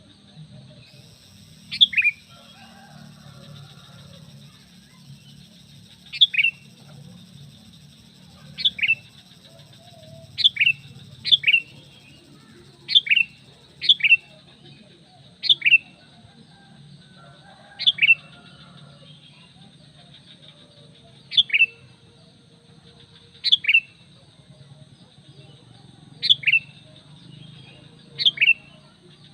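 Sooty-headed bulbul (kutilang) giving short, sharp calls, each a quick pair of notes falling in pitch, repeated at uneven intervals of one to three seconds; a bulbul lure call. A faint steady hum runs underneath.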